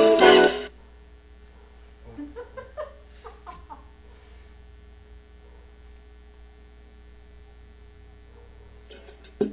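Forró music stops about half a second in, leaving a steady low electrical mains hum. A faint voice comes and goes briefly about two to four seconds in, and a few clicks sound near the end.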